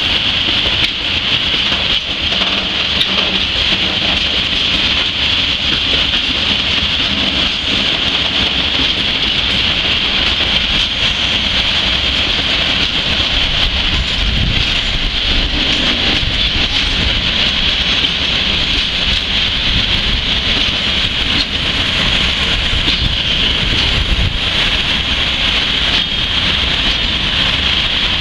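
Freight train of tank wagons rolling slowly past close by: a steady noise of wheels on rail with a hissing high edge, and a couple of low thumps.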